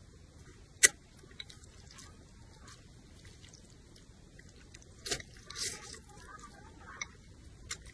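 Noodle eating: wet slurping and chewing of noodles with a sharp click about a second in, the loudest moment, and a longer slurp around five seconds in.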